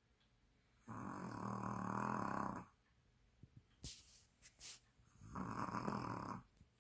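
A sleeping dog snoring: two long snores about three seconds apart, the first nearly two seconds long and the second about a second, with a few faint clicks and snuffles of breath between them.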